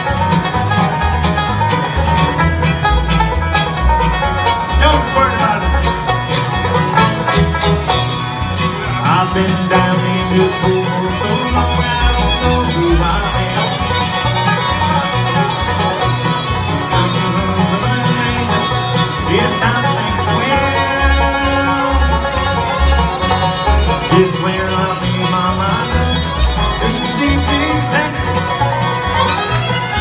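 Live acoustic bluegrass band playing: banjo, fiddle, acoustic guitar and upright bass, with the bass pulsing steadily underneath.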